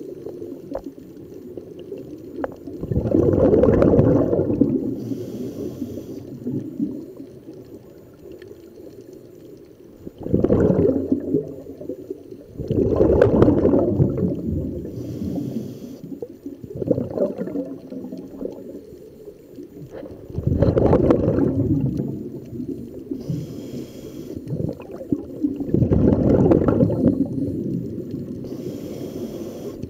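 A scuba diver breathing through a regulator underwater, heard as about six surges of exhaled bubbles rumbling out, roughly every four to five seconds. Between some of them there is a short hiss as the diver breathes in.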